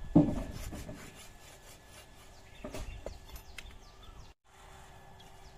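Machete chopping through a fish on a wooden stump block: one heavy chop just after the start, then a few lighter knocks of the blade on the wood about three seconds in.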